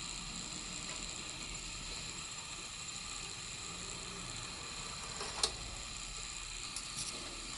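Technics SL-BD20 turntable with the stylus in the groove before the music starts: a faint, steady hiss and hum, with one sharp click about five and a half seconds in and a few lighter ticks about a second later.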